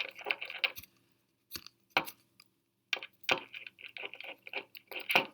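Small hard clicks and clinks from fingerboard parts being handled on a table: irregular light ticks, a pause, then a dense run of clicking near the end.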